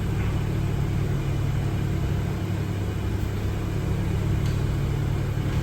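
Steady low mechanical rumble with a constant hum, unchanging throughout.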